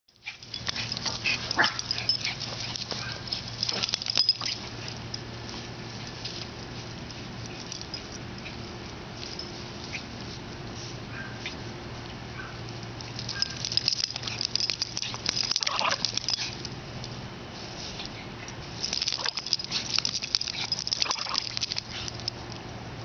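Miniature pinscher worrying a toy in the grass: scuffling and short dog noises come in three bouts, at the start, around the middle and near the end.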